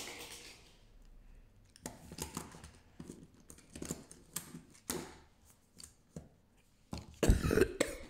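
Plastic fidget toys handled on a table: a string of short knocks and clicks, then a short, louder vocal noise from a child near the end.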